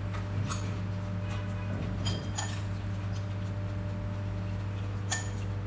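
Cutlery clinking against plates at a meal: a few light, separate clinks, one with a short ring, over a steady low electrical hum.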